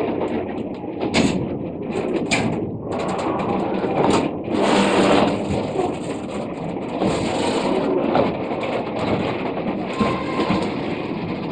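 Loaded freight wagons rolling past close by on metre-gauge track: a steady wheel-on-rail rumble and rattle, broken by repeated clanks and knocks from the wheels and couplings.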